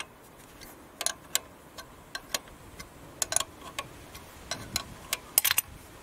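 Irregular sharp metallic clicks and taps from a steel spanner working the union nut of a high-pressure fuel line on a Kia 2.0 CRDi diesel injector, a dozen or so over the stretch, some in quick pairs.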